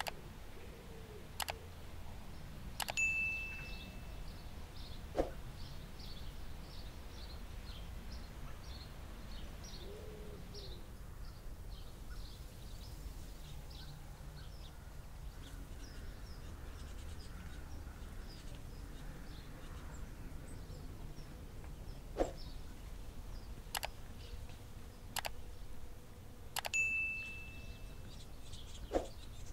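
Mouse-click sound effects with a short bell ding, about three seconds in and again near the end, as on a subscribe-button animation. In between, small birds chirp repeatedly over a faint background hiss.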